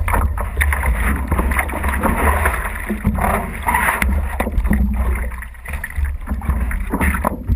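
Water splashing and lapping as hands paddle a windsurf board across calm water, heard close to the water surface, in irregular strokes over a steady low rumble.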